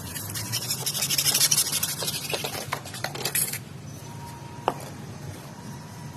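Rapid scraping or rubbing for about three and a half seconds, then a single sharp click.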